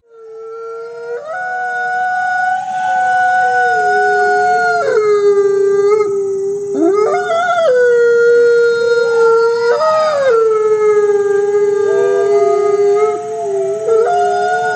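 A pack of wolves howling: long drawn-out howls that slide up and down in pitch, with two or more voices overlapping at different pitches in the middle.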